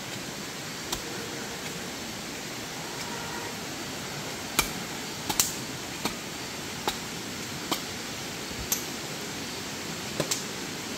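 Steady rushing of a river, with about ten short, sharp knocks at irregular intervals, most of them in the second half.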